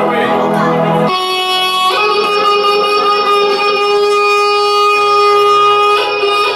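A reed wind instrument playing: a short high note, then one long held note lasting about four seconds, with a lower note sounding under it near the end.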